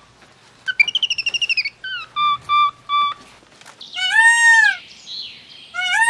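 A small bird singing a rapid falling trill followed by three short, even whistled notes. About four seconds in, an Indian peafowl (peacock) gives a loud, arched wailing call, and calls again at the end.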